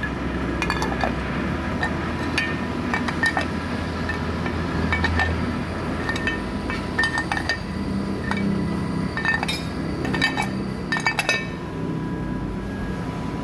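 Loose cast metal covers clinking and knocking against the studs and bolts of a bare engine cylinder head as they are picked up and set back down, about a dozen separate sharp clinks, several in quick runs. A steady machine hum runs beneath.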